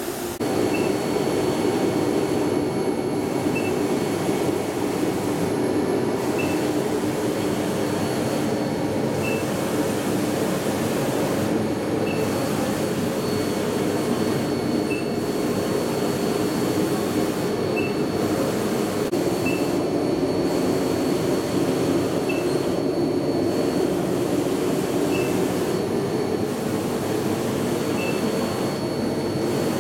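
Large-format UV inkjet printer running: a steady loud machine hum with a faint high whine, while small ticks and brief dips recur every few seconds.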